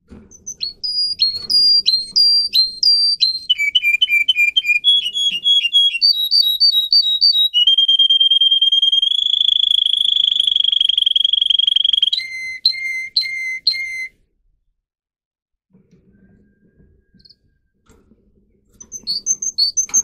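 Domestic canary singing: phrases of quickly repeated notes, each phrase at a different pitch, then a long held whistle of about four seconds, then lower repeated notes. The song stops about two-thirds of the way through and starts again near the end.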